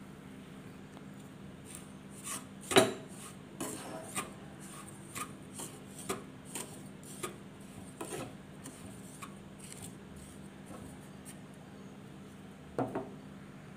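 Spatula stirring dry semolina (rava) roasting in a pan: irregular gritty scraping with scattered knocks of the spatula against the pan, the sharpest about three seconds in and another near the end.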